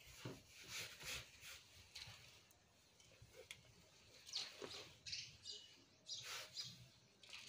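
Faint swishes and rustles of a heavy electric iron sliding over denim jeans and a hand smoothing the fabric, in several short strokes.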